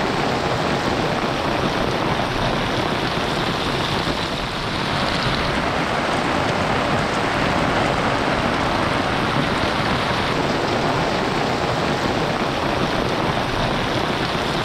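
Heavy monsoon rain falling steadily: a dense, even hiss of drops with no let-up.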